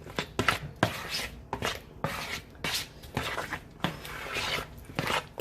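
Sliced apples in syrup being stirred in a bowl: a utensil knocks against the bowl about twice a second, uneven, with the wet sliding of the coated slices between knocks.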